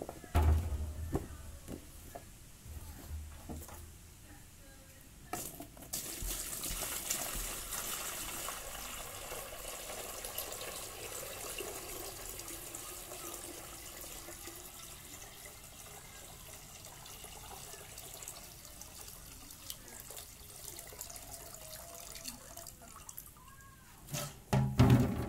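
A stream of water pouring into a folding plastic bucket as it fills, a steady splashing rush that starts about five seconds in and runs until near the end, when a few loud knocks come as the bucket is handled. The bucket is being filled to test it for leaks.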